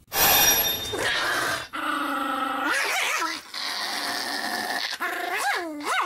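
Pomeranian puppy vocalising in a run of drawn-out whines and grumbling growls, starting with a loud burst, several calls sweeping sharply up and back down in pitch.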